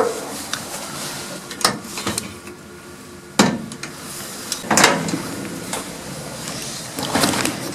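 Four sharp knocks and clunks, a second or two apart, over a faint steady hum.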